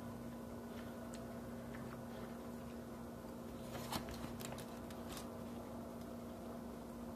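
Fingers picking apart steamed fish in its crinkly banana-leaf and foil wrapping, giving a short cluster of crackles and clicks about four seconds in, over a steady low hum.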